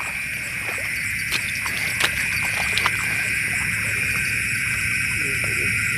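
Night insects chirring in a steady, high-pitched chorus, with a few faint clicks over it.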